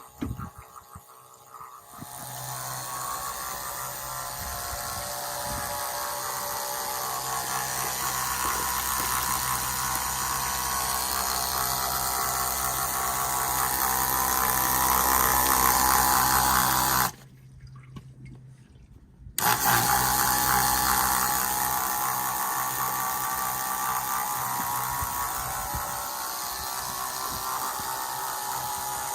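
A 12 V electric fuel transfer pump runs steadily, its small motor humming and buzzing while water pours through the outlet hose into a bucket. It starts about two seconds in, cuts out suddenly for about two seconds past the middle, then runs on.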